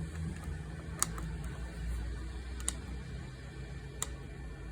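Three sharp clicks of buttons being pressed on a Chinese diesel heater's control panel while adjusting the minimum fan speed setting, over a steady low hum.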